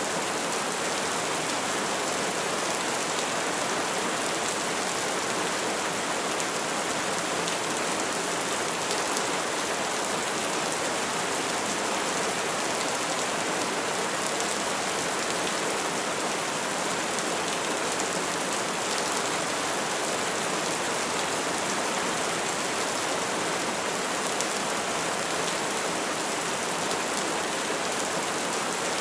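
Steady rain falling, an even hiss of countless drops with no thunder and no change in level.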